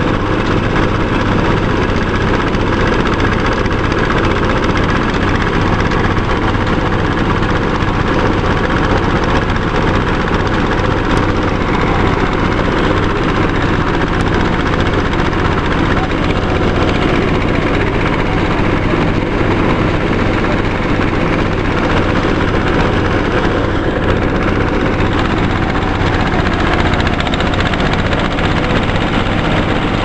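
A rice thresher running under load, belt-driven by a small red single-cylinder diesel engine that runs steadily while rice stalks are fed into the threshing drum. The engine's steady low tone and the noise of the drum stay even throughout.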